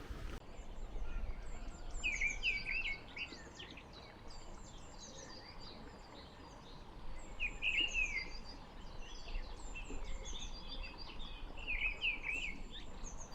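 Small birds chirping and twittering, with quick runs of short high notes that come in louder clusters several times, over a faint low background rumble.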